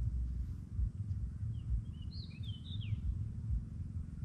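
A bird gives a short burst of quick high chirps about two seconds in, over a steady, uneven low rumble of outdoor background noise.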